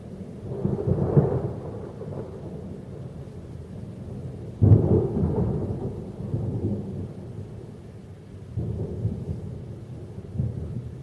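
Thunder from an overhead storm: a low rumble swells about a second in, a sudden clap about halfway through rolls away over a couple of seconds, and another roll follows near the end.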